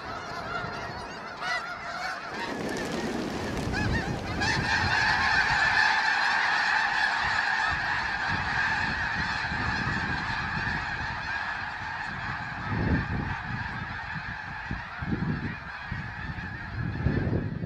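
A large flock of snow geese calling all at once, a dense, continuous clamour of high honks that swells about four seconds in. Low rumbling thumps run under it in the second half.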